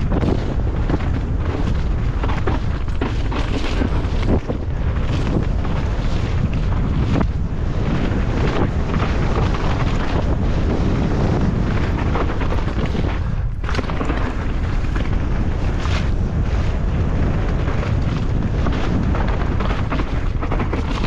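Wind buffeting a helmet-mounted camera's microphone at riding speed, with a steady stream of knocks and rattles from a downhill mountain bike running over rough, muddy ground.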